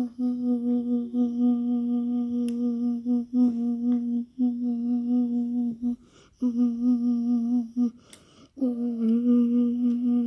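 A voice humming one steady low note, held in long stretches with short breaks every one to three seconds.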